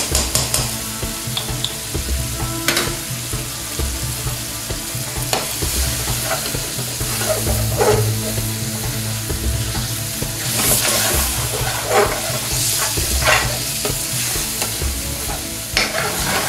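Lamb rogan josh curry sizzling in a metal frying pan while a long metal spoon stirs it, scraping against the pan every couple of seconds.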